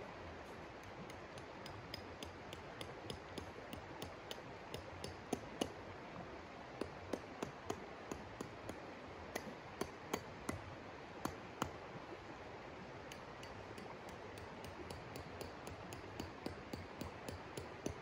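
Shallow river running steadily, with a scatter of sharp clicks and clinks from hands working at the water's edge, coming thickest and loudest from about five to twelve seconds in.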